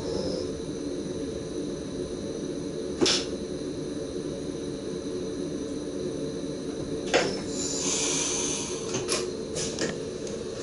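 Steady electric hum from an SGM Sprinter train's cab and traction equipment as it creeps slowly along the platform, broken by a few sharp clicks from the driver's controls and a short hiss about eight seconds in.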